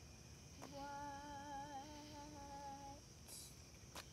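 A young girl's voice softly holding one long sung note for about two seconds, its pitch wavering slightly. The note is the drawn-out end of a line she is singing.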